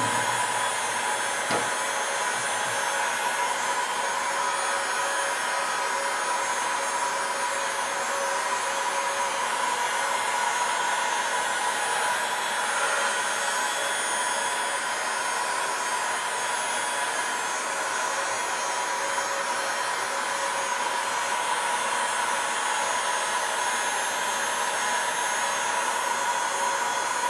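Heat gun blowing steadily, its fan motor giving a steady whine, warming the adhesive under the glass digitizer to soften it for prying.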